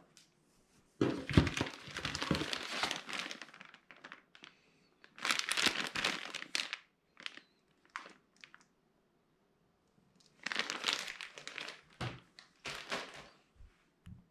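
Packaging being handled during an unboxing: crinkling and tearing in three long bursts, with a few short knocks and clicks between them.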